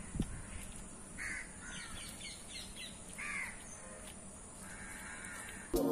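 Crows cawing outdoors, several short caws, the loudest about one and three seconds in, over faint background noise. Electronic music with a beat starts suddenly just before the end.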